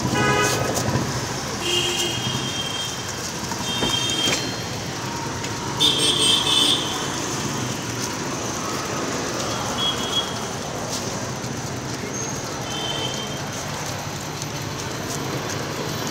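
Street traffic: a steady engine rumble with several short, high horn toots, the loudest about six seconds in.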